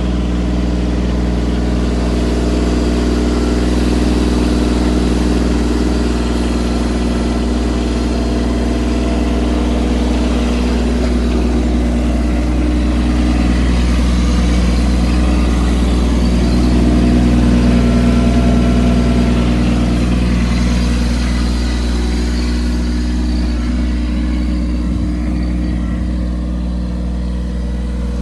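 Mahindra Jivo compact tractor's diesel engine running steadily while powering a mini backhoe, a little louder about two-thirds of the way through.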